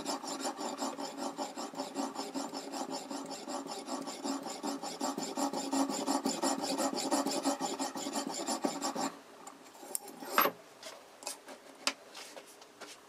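Oil whetstone in a guided sharpener rubbing back and forth along a kitchen knife's edge in quick, even strokes. The strokes stop about nine seconds in, followed by one sharp clink and a few light clicks.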